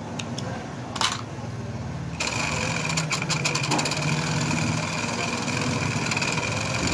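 Industrial overlock sewing machine stitching a pico (picot) edge on fabric. After a few clicks and a knock about a second in, it starts up about two seconds in and runs steadily with fast, even ticking and a high steady tone.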